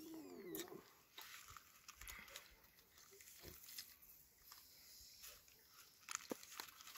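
Near silence, broken by a few faint scattered clicks.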